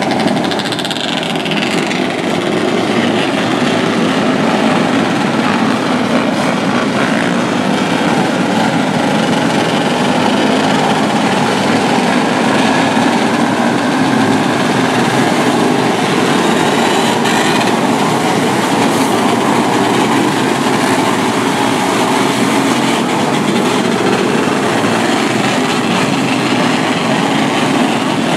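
A pack of 125cc winged micro sprint cars racing together, their small high-revving engines blending into one steady, loud drone.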